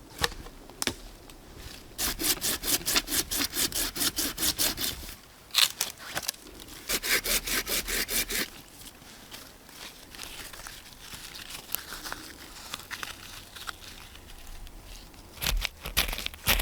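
Hand saw cutting wood in quick back-and-forth strokes, about four a second, in two runs with a short pause between. Quieter scraping and a few knocks follow near the end.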